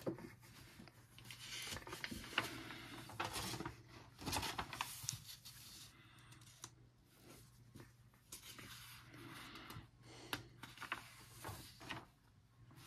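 Pages of a coloring book being turned by hand, the paper rustling and crackling in irregular bursts.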